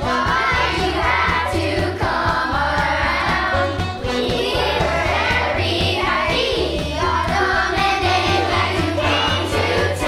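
A children's choir singing with an instrumental accompaniment that has a steady bass line.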